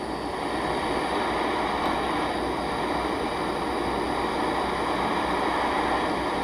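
Handheld gas torch flame burning with a steady hiss.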